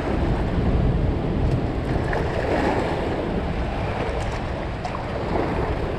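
Steady rush of water pouring through a dam spillway: an even, unbroken noise with a heavy low rumble.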